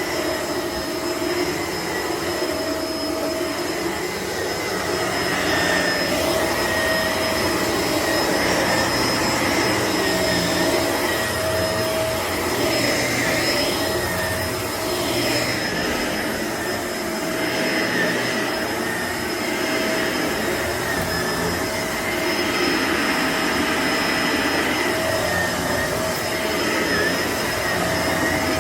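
Shark upright vacuum cleaner running continuously with a steady whine, its loudness rising and falling a little as it is worked over the floor.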